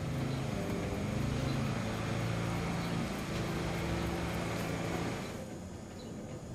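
Steady low drone of a motor engine running, several steady tones, that stops abruptly about five seconds in, leaving a fainter hum.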